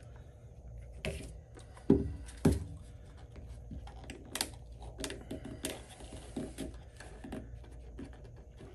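Tabletop handling sounds: a click, then two sharp knocks about two seconds in, followed by light clicks and rustles as the edge guard is pressed and worked onto the paddle's rim.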